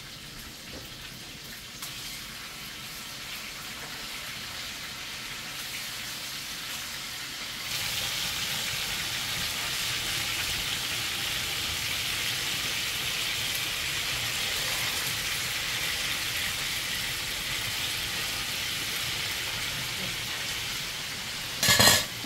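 Food sizzling in a hot pot on the stove, a steady hiss that gets louder about eight seconds in. A short, loud clatter comes near the end.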